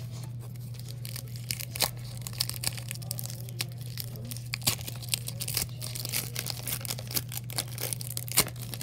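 Foil wrapper of a Pokémon booster pack crinkling and being torn open by hand: a run of sharp, irregular crackles, the loudest near the end, over a steady low hum.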